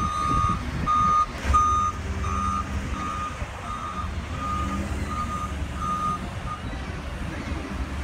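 Komatsu WA270 wheel loader's reverse alarm beeping about one and a half times a second, growing fainter and stopping near the end, over the steady low rumble of its diesel engine. A loud thump about a second and a half in.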